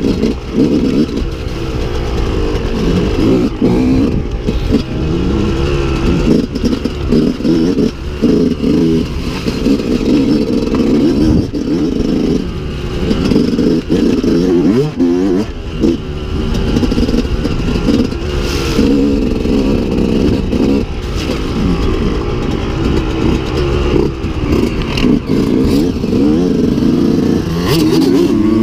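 Dirt bike engine ridden hard, its revs climbing and dropping again and again as the throttle opens and closes, with rattles from the rough ground.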